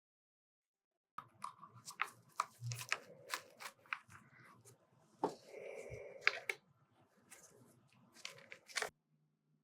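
Light clicks, taps and short scraping or crinkling noises of small-scale handwork on a diecast model car, starting about a second in and stopping shortly before the end.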